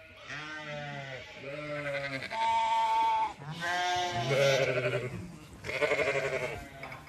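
Zwartbles sheep bleating: a string of about five wavering calls, some deep and some higher-pitched, one after another and now and then overlapping.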